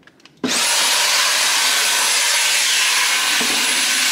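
Dyson cordless handheld vacuum cleaner, fitted with a crevice tool, switching on about half a second in. Its motor spins up with a high whine that climbs quickly and then holds steady over a loud rush of air.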